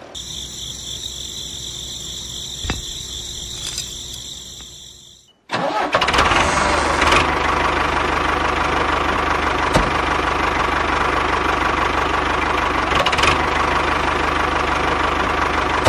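Motor of a homemade mini tractor running: first a thinner sound with a steady high whine that fades out, then after a short break, about five and a half seconds in, a louder steady engine-like running sound with a low hum.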